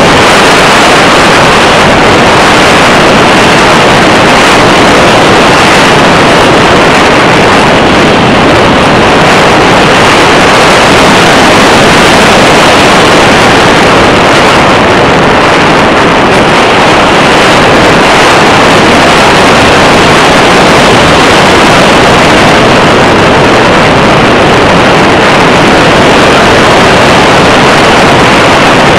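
Loud, steady rushing airflow over the microphone of a camera mounted on an RC glider in flight, with no clear motor tone.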